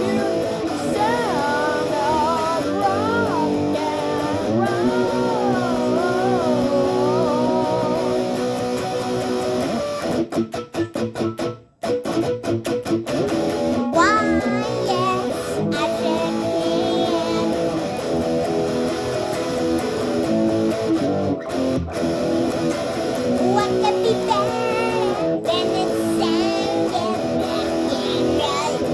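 Rock music with strummed and lead electric guitar and bass, with a stretch of rapid stop-start hits about halfway through that cuts out briefly before the band comes back in.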